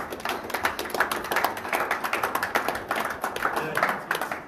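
A small crowd of onlookers applauding: dense, irregular hand claps at the close of a match.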